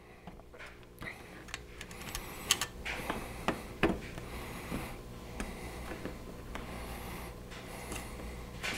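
Aluminium foil tape crinkling and clicking in irregular small ticks as fingers press and smooth it over the joint of a cracked plastic bumper, over a faint low steady hum.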